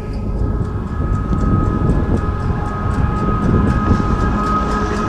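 Chairlift haul rope and sheave machinery running, a steady whine with rapid light clicking about three times a second, over wind rumble on the microphone.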